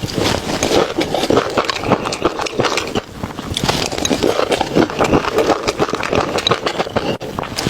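Close-miked chewing and mouth smacking, a rapid, irregular run of clicks and smacks.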